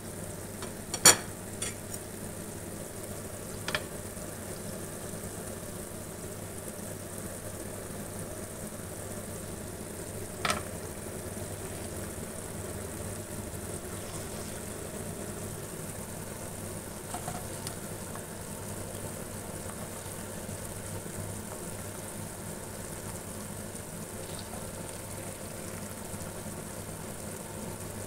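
Meatballs and sliced onions frying in oil in a pan: a steady sizzle over a low hum. A few sharp knocks break through, the loudest about a second in and another about ten seconds in.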